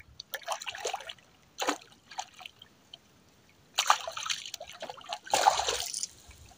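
Water splashing and trickling in several short bursts as a wet drift gillnet is hauled in over the boat.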